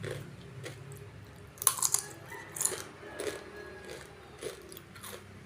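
Close-up crunchy chewing of raw long beans dipped in sambal: several irregular crisp crunches as they are bitten and chewed.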